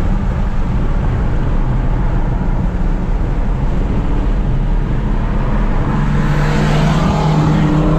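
Dodge Challenger Hellcat's supercharged V8 heard from inside the cabin, running at steady revs, then rising in pitch as it accelerates from about six seconds in.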